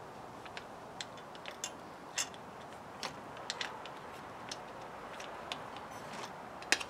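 Faint, irregular metallic clicks and ticks as a washer, nut and mudguard stays are handled and fitted onto a bicycle's rear brake bolt, with a couple of sharper clicks near the end.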